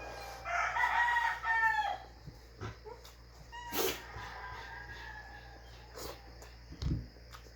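A rooster crowing, one clear crow about a second and a half long near the start and a fainter drawn-out call in the middle. A sharp click about halfway through and a low thump near the end.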